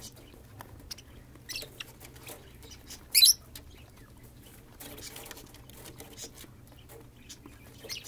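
Small parrots in an aviary, budgerigars and lovebirds, giving scattered faint chirps, with one short, shrill call about three seconds in.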